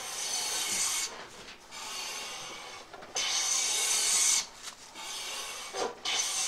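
Metal jack plane cutting shavings from the edge of a wooden board, each stroke a rush of noise about a second long. Three louder strokes come about three seconds apart, with quieter ones between. The blade has just been sharpened and advanced a little to take a cut.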